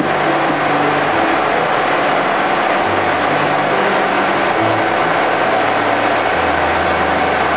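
Machinery of a tin-mining suction boat running steadily: a loud, even roar with a low hum that steps up and down in pitch every second or two.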